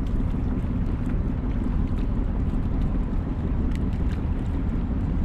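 Motorized outrigger boat (bangka) under way: a steady low engine drone with wind rushing over the microphone.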